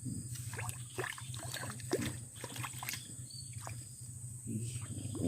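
Water sloshing and splashing in short irregular bursts as a hooked snakeskin gourami struggles at the surface, over a steady low hum and a constant high insect drone.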